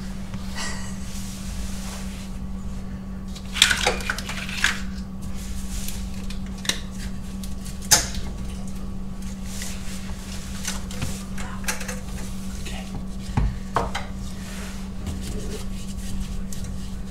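Metal parts and tools clinking and clanking intermittently as hands work on a car's rear drivetrain underneath it, with a few sharper clanks about four and eight seconds in, over a steady low hum.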